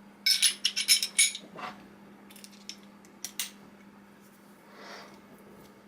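A quick run of light clicks and clinks as the parts of a Taurus PT 24/7 pistol are handled, followed by a few single clicks over the next two seconds.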